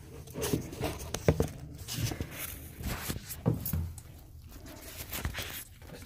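Irregular handling sounds: light knocks, clicks and rustles of hands moving about the toilet tank and its supply line.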